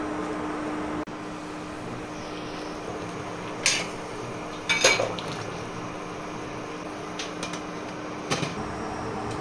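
Pork mesentery boiling in a metal pot on an induction cooktop, over a steady hum. A few metal clanks of a utensil and the glass lid against the pot as the pieces are stirred and the lid is set back, the loudest about halfway through.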